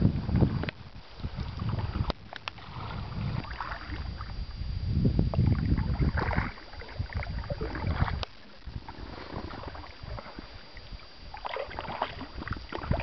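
Water splashing and lapping around a dugout pirogue moving on a river, in irregular bursts. Gusts of wind rumble on the microphone at the start and again about five seconds in.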